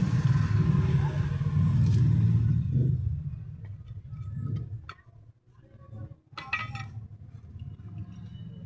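A motor vehicle's engine rumbling, loud for about three seconds and then fading away, followed by scattered light clinks and knocks, the loudest cluster about six and a half seconds in.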